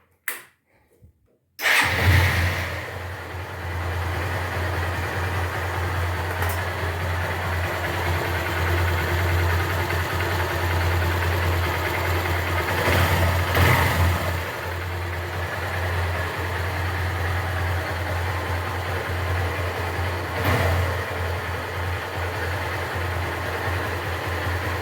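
Honda Titan 150's single-cylinder four-stroke engine starting about two seconds in, then idling steadily, with a brief rev about thirteen seconds in. The engine runs with its worn gearbox (6203) bearing freshly replaced.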